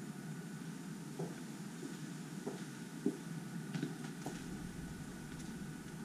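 Steady low rumble of background noise, with a few soft knocks spaced about a second apart: footsteps on concrete steps.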